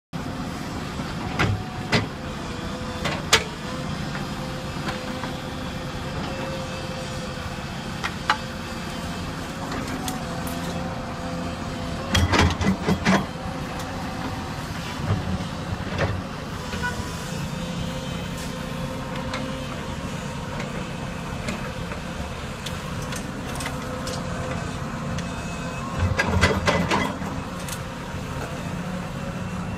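Diesel engines of a Volvo crawler excavator and a dump truck running steadily, with sharp knocks and clatters as earth and stones are dropped from the bucket into the truck's steel bed. The clatter comes in scattered single knocks and in two louder bursts, about halfway and near the end.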